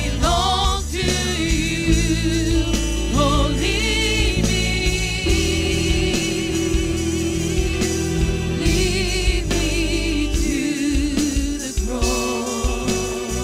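Contemporary worship song performed live by a praise band: several singers with microphones singing with vibrato over the band's accompaniment, with one long held note near the middle.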